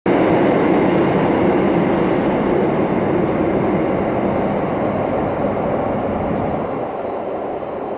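Metro train running in the station tunnel: a steady, loud rail noise that slowly gets quieter.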